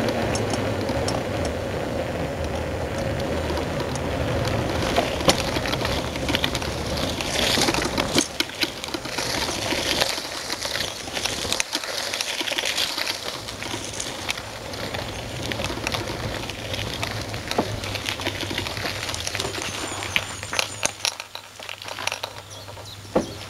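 Bicycle-towed dog trailer rolling along, with road and wind rumble. From about eight seconds in the rumble drops and the wheels crunch and rattle on a gravel track, with many small clicks and crackles.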